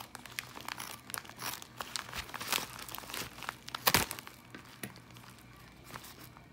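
Plastic bubble mailer crinkling and rustling in irregular crackles as it is handled and cut open with scissors, with one sharp click about four seconds in.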